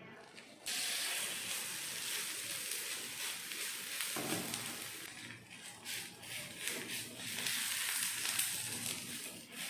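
Jowar adai batter sizzling on a hot dosa griddle: a steady hiss that starts suddenly about a second in as the batter goes onto the pan, with soft pats through it as the adai is pressed out.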